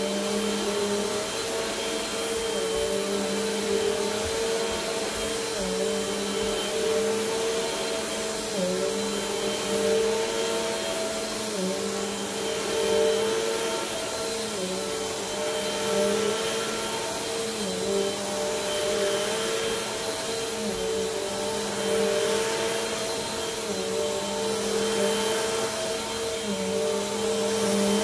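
Bagless upright vacuum cleaner running on an area rug. Its motor hums steadily, the pitch wavering slightly and the loudness swelling and dipping every few seconds as it is pushed back and forth.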